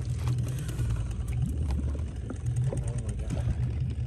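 Boat engine running at idle: a steady low hum.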